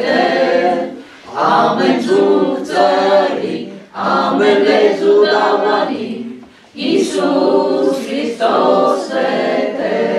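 Congregation singing a hymn together without accompaniment, led by a man's voice, in sung phrases with short pauses between them.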